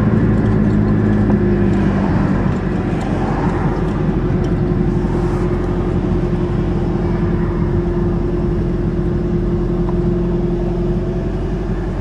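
Turbo Dodge Aries wagon driving at a steady speed while towing a loaded trailer: a steady engine hum over road noise, with a rush of noise swelling and fading a few seconds in.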